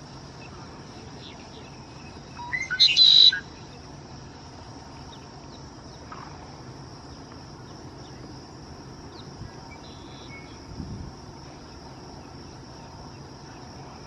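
A red-winged blackbird sings once, a couple of seconds in: short opening notes run into a buzzy trill, the conk-la-ree song. A steady high hum of insects runs underneath.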